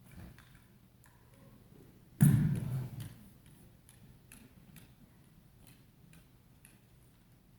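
Handling sounds from rifle spinning: faint light clicks, then one loud thump about two seconds in that dies away within a second.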